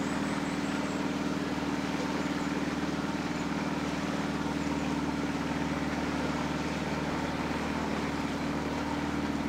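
Petrol outboard motor on a small fibreglass canal cruiser running steadily at cruising speed, with an even low engine note.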